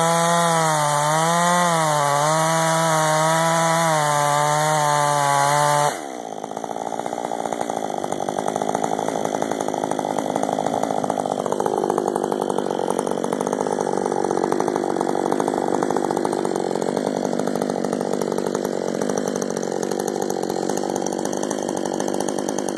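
Husqvarna 562 XP chainsaw with a modified muffler running at full throttle through a log, its pitch sagging and recovering under the load. About six seconds in the throttle is released and the saw drops to a steady, pulsing idle.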